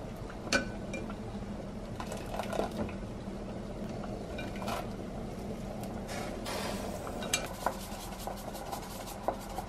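Light clinks and knocks of a metal mesh strainer and utensils against a glazed cooking pot, a handful spread through, over a low steady hum.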